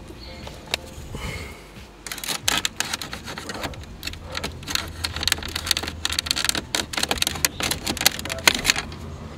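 Plastic interior trim of a Ford Focus RS being pried and handled as its clips let go: a run of many small sharp clicks and rattles, busiest from about two seconds in.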